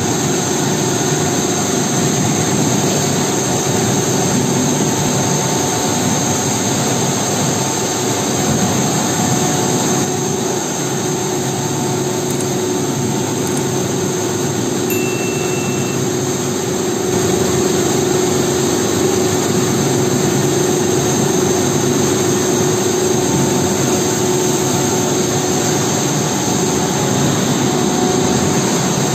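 Steady loud hum and hiss of machinery running on a plastic pipe production line, with a few steady tones held under the noise.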